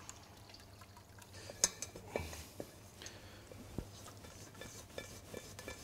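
Quiet scraping and a few short clicks of a spatula against a stainless steel pan as a wet green chlorophyll mixture is scraped out into a straining cloth.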